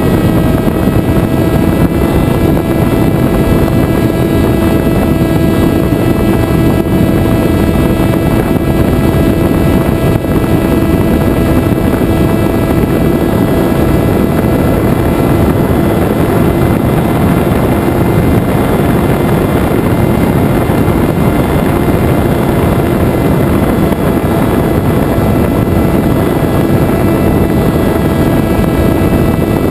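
Venturi FPV flying wing's electric motor and propeller running at a steady throttle, picked up by the onboard camera in flight: a constant pitched hum over rushing air, with no change in pitch.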